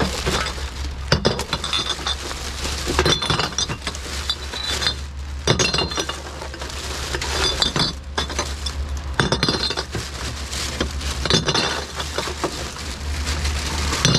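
Empty glass bottles clinking against one another as they are handled and dropped into a bin full of bottles, about a dozen irregular clinks.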